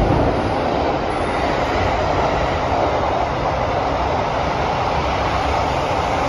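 Kawasaki–CRRC Sifang CT251 metro train running through a tunnel, heard from inside the passenger car: a steady rumble and rush of wheels on rail.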